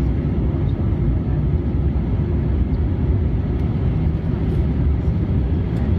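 Cabin noise of an Airbus A319 in flight, heard from a window seat beside the wing: a steady low drone of engine and rushing air, unchanging throughout.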